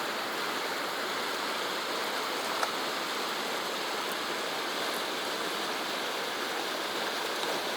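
Steady rushing of flowing stream water, with a single faint click about two and a half seconds in.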